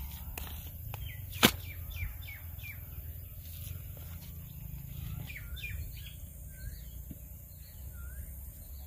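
Birds chirping again and again with short calls that slide downward, over a low steady rumble. A single sharp knock comes about a second and a half in.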